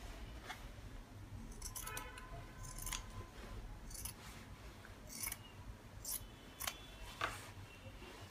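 Scissors snipping through a thick knitted scarf, a series of short cuts about once a second.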